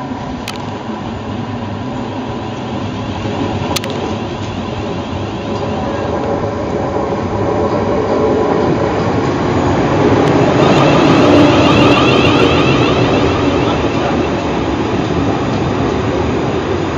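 A South Western Railway Class 450 Desiro electric multiple unit approaching and running past close by, its running noise growing louder to a peak about eleven or twelve seconds in as the carriages go by, then easing slightly.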